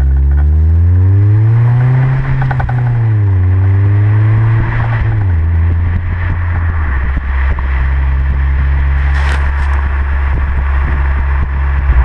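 A Honda Civic Si's 2.0-litre four-cylinder heard at the tailpipe of a Tanabe Medallion cat-back exhaust while driving. The revs climb and fall back twice in the first five seconds, then the exhaust drones steadily at cruise under rising road and wind rush.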